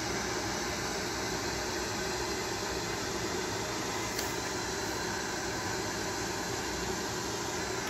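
Steady room noise: an even hiss with a low hum underneath, with a faint click about four seconds in.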